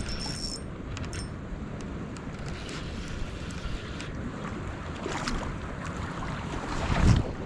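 Steady rush of river water with wind buffeting the microphone, and a louder surge of noise about seven seconds in.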